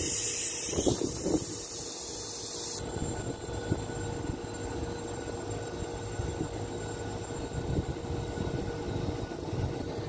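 Toshiba split air conditioner's outdoor unit running with a steady hum while it is recharged with R22 refrigerant. A loud hiss over the first three seconds cuts off suddenly.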